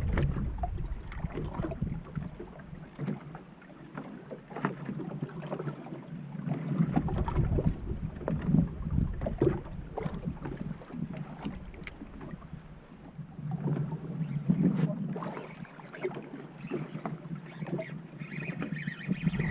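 Water slapping and lapping irregularly against the hull of a small boat, with wind gusting on the microphone.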